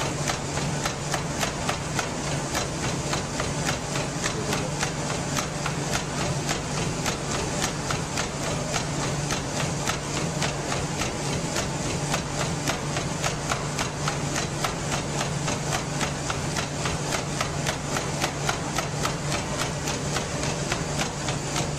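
Fast, even footfalls striking a treadmill deck at a 15 mph sprint, several strikes a second, over the treadmill motor's steady low hum.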